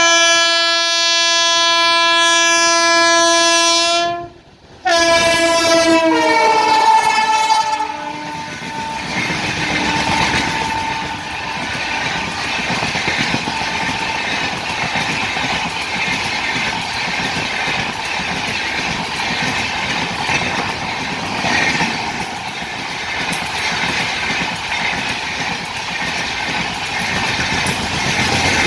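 WAP7 electric locomotive's horn sounding a long blast that breaks off about four seconds in, then a second blast whose pitch drops as the locomotive goes by. The express's coaches then run past with a steady noise of wheels on rail.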